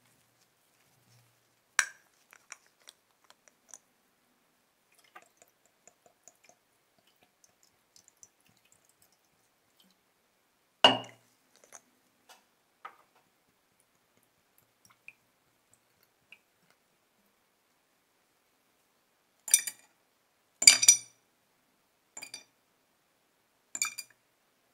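Scattered small clicks and ticks of plastic bottles and their screw caps being handled, with one louder knock partway through. Near the end comes a run of sharp clinks of metal tweezers and the corroded brass lighter part against a glass jar.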